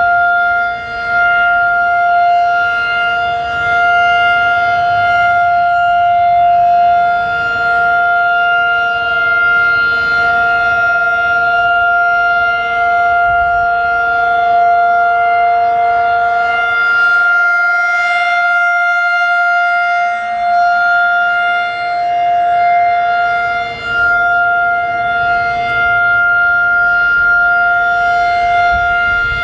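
Federal Signal 2001-DC outdoor warning siren sounding the Full Alert signal: one steady, unbroken tone held at constant pitch, with wind buffeting the microphone underneath.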